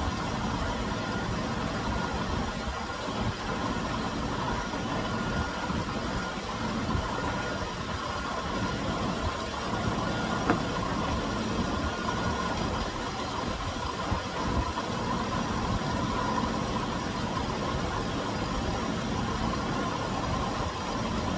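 Chevy Venture minivan's 3.4-litre V6 idling steadily while it warms up after a thermostat replacement, the cooling system waiting for the thermostat to open. A single sharp click about halfway through.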